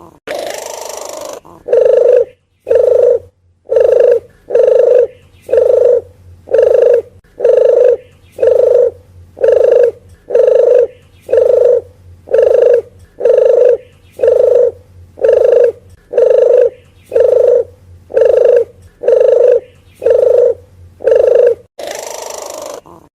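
Deruk geni (puter geni) dove calling: a long run of short, low coos repeated evenly at about one a second. Near the start and near the end, a harsher, hissy sound plays instead of the coos.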